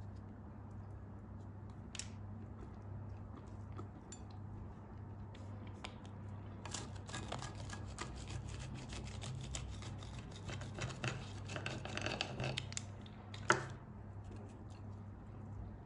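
Crisp crackling and crunching as a sesame-crusted tahini bun is torn and cut with a metal utensil on a ceramic plate. The crackles are densest from about seven to thirteen seconds, followed by one sharper clink or scrape.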